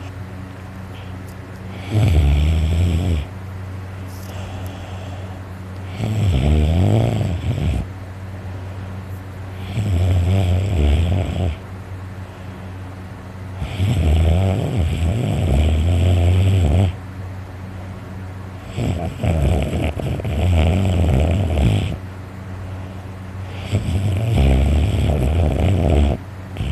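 A person snoring loudly and heavily in deep sleep: six long snores about every four seconds, each lasting one and a half to three seconds, over a steady low hum.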